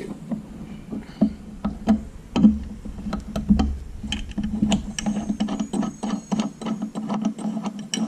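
Metal wrench ticking on the set bolts of a garage door torsion spring's winding cone as they are backed out of the shaft to release the spring. Scattered clicks at first, then a quick even run of ticks through the second half, over a low steady hum.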